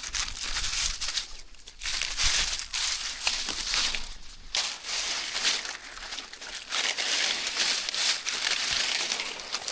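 Dry brush and tree limbs rustling and crackling as they are pulled and gathered by hand, in several bursts with short pauses between.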